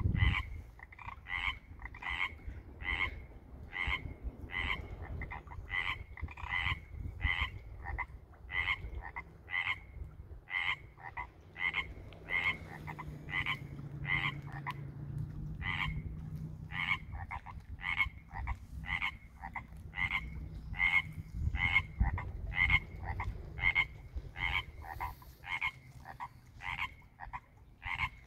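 A chorus of Pacific treefrogs (chorus frogs) calling, short two-part 'rib-it' croaks repeated about twice a second with brief lulls, as several males call at a spring breeding pond.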